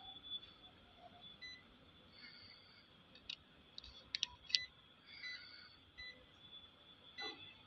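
Touchscreen control panel of a computer panel saw giving short beeps as its keys are pressed, with a few sharp taps in the middle, over a faint steady high tone.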